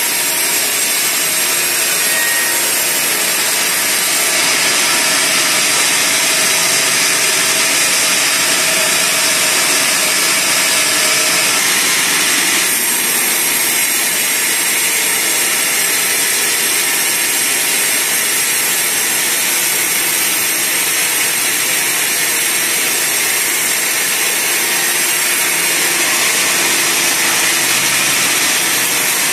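A sawmill's band saw running steadily while cutting through a log, a loud, even noise whose character shifts slightly about four seconds in and again past twelve seconds.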